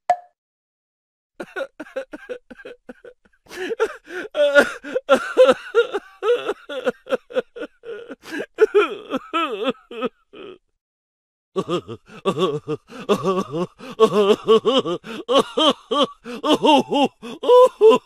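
Crying sound effect: a person sobbing in quick broken sobs, starting about a second and a half in, pausing briefly about ten seconds in, then sobbing again.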